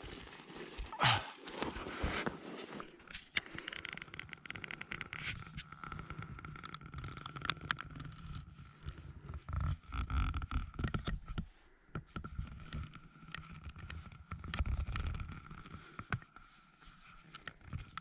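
Close, irregular scraping, rubbing and crunching: a person shifting and crawling on packed snow inside a small snow shelter, with the camera handled against his clothing.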